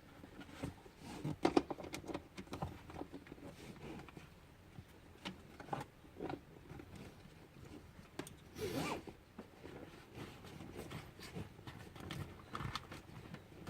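A child car seat being handled and fitted: straps and fabric rubbing and sliding with a zip-like rasp, and scattered short plastic clicks and knocks. A longer, louder scrape comes about nine seconds in.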